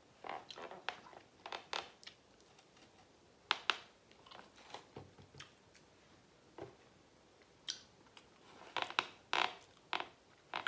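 Close-up eating sounds: chewing with wet lip smacks and mouth clicks in irregular bursts, with a fork picking at food on the plate.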